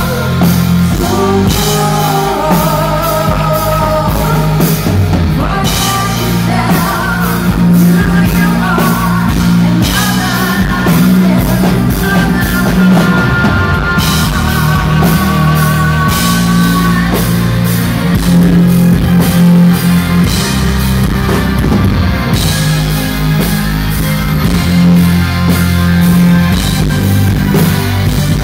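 A symphonic metal band playing live: a female lead vocal sings over drums, guitars and heavy bass. The sound is loud and boomy because it was recorded right beside the PA speakers.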